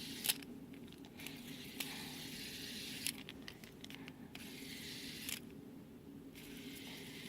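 Faint handling noise from a fidget spinner being fiddled with: a few light clicks and patches of scraping, rustling hiss that start and stop.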